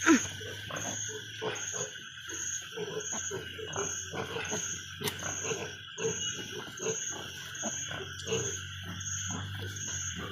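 Pigs in a farrowing pen grunting in many short, quick low grunts. A sharp click comes right at the start, and a high chirp pulses about twice a second behind them.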